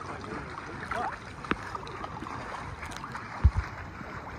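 Lake water lapping and splashing around a paddleboard, with wind on the microphone and scattered small clicks. A quick, dull double thump about three and a half seconds in.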